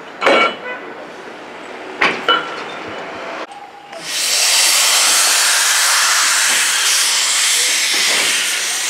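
Two sharp metallic clanks in the first couple of seconds, then about four seconds in a loud, steady hiss of steam starts blowing from the steam tank locomotive's cylinder drain cocks.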